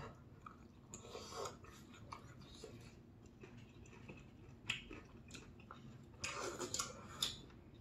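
Quiet eating sounds: soft chewing and mouth noises, one sharp click of a utensil on a ceramic bowl a little before halfway, and a short burst of slurping noodles about six seconds in.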